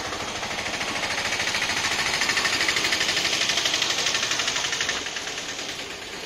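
Mahindra Alfa Plus three-wheeler loader's engine running with a rapid, even clatter. It grows louder, then fades and drops off about a second before the end.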